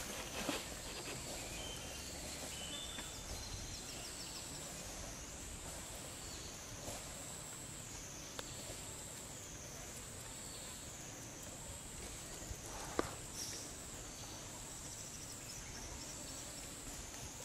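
Insect chorus: a steady high-pitched buzzing that rises and falls in pitch in a regular cycle, a little over once a second. A single sharp click sounds about three quarters of the way through.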